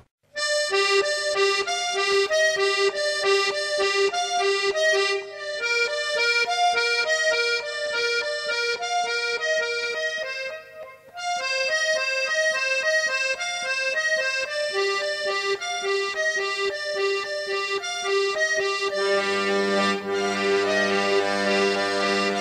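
Accordion music: a lively melody of short notes that pauses briefly about halfway, with low held chords coming in near the end.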